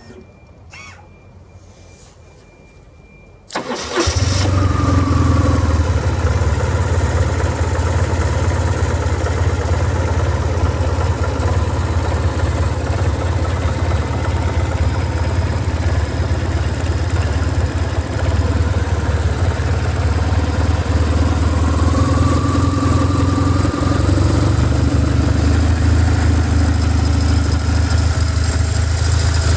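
BMW R1150R's boxer-twin engine started: the starter cranks briefly about three and a half seconds in, the engine catches, and it settles into a steady idle. Before that there are a few light clicks and a faint steady whine with the ignition switched on.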